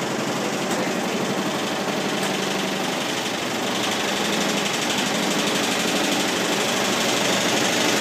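Front-loading washing machine spinning with an out-of-balance load, the drum shaking the cabinet in a fast, steady rattle that grows slightly louder toward the end.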